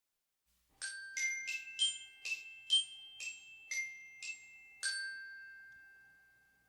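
Short chime melody of about ten struck bell-like notes, roughly two a second, starting a little under a second in; the last note rings on and fades away.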